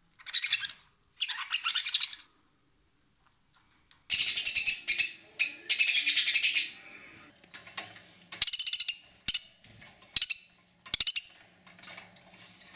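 Budgerigar giving harsh squawks in a string of separate bursts, the longest near the middle: a pained protest call, given when the bird is touched or bitten and it hurts.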